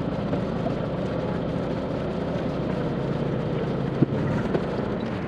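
Boat engine running steadily at idle, with a single sharp click about four seconds in.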